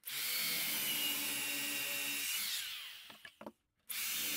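DeWalt corded drill boring a half-inch hole into the edge of a wooden shelf. It runs steadily for about two seconds and winds down, a few clicks follow, and near the end it starts up again and keeps drilling.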